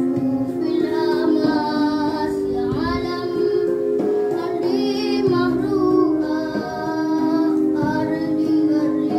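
A song: a high singing voice over instrumental accompaniment, with long held notes.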